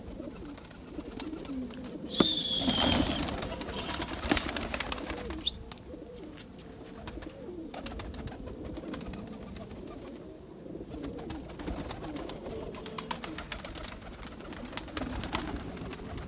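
A flock of domestic pigeons cooing throughout, with many quick clicks as they peck at feed on the ground. A louder rustling flurry comes about two seconds in and lasts a couple of seconds.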